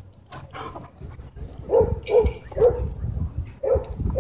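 A dog barking in short, sharp barks, about five of them, starting a little before two seconds in.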